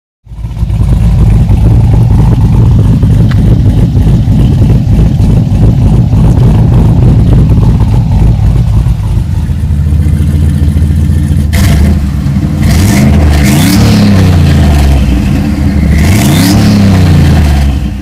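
Modified GM LS-series V8 running loud with a deep, steady rumble. About halfway through the engine is revved several times, its pitch rising and falling with each blip.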